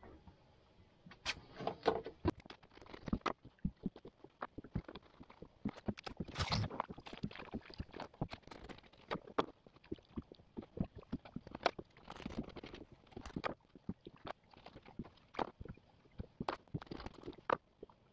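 Irregular clicks, knocks and scrapes of a knife and hands working fish on a plastic fillet board, with a longer scraping rustle a few seconds in and again past the middle.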